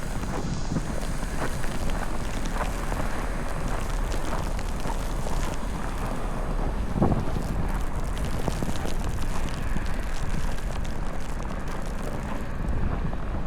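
Storm wind buffeting the microphone in a steady low rumble, with a brief thump about halfway through.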